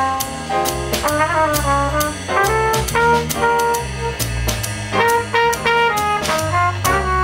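Small jazz combo playing live: a trumpet carries the melody over piano, bass and drums, with steady cymbal strokes keeping time.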